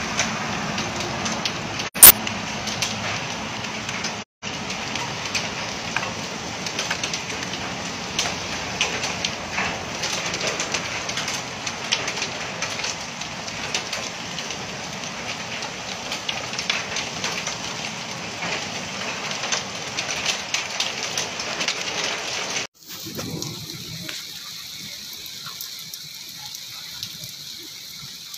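Heavy rain falling steadily on a wet street, a dense hiss full of pattering drop impacts, with one sharp loud click about two seconds in and a brief dropout soon after. About three quarters of the way through it cuts abruptly to a quieter, thinner hiss.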